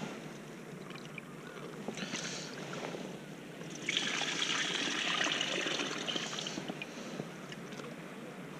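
Water poured from a small bucket into a mesh-topped fish keeper bucket, splashing for a few seconds from about four seconds in, while the angler changes the water in it. Light handling sounds before the pour.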